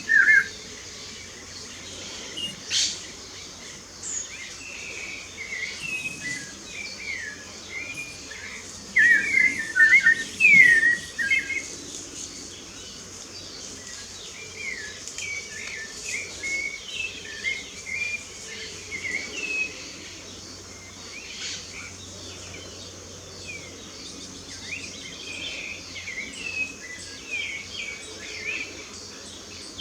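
Several wild birds chirping and singing in short, overlapping phrases, with a louder burst of song about nine to eleven seconds in, over a steady high hiss.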